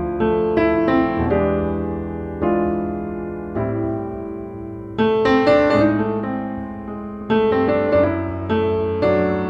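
Slow piano music: chords struck and left to ring and fade, a new chord every second or so.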